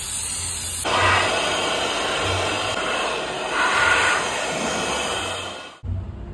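Handheld steam cleaner blasting a hissing jet of steam, mostly air rather than water, over and into a motorcycle helmet. The hiss swells twice and cuts off suddenly near the end.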